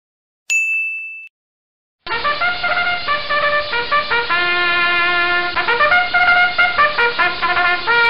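A short high ding about half a second in, then a trumpet playing a quick tune of short notes with a few longer held ones, ending on a held note.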